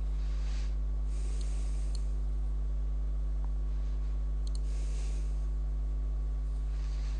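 Steady electrical mains hum from the recording setup, a low drone with a ladder of overtones, at an even level. A few faint computer-mouse clicks come through it, about a second and a half in, at two seconds, and again about four and a half seconds in.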